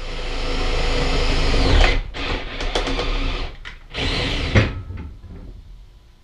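Cordless drill boring pilot holes for self-tapping screws into the trailer wall's subframe. One long run of about two seconds slows to a stop, then comes a series of short bursts, with a last burst about four seconds in.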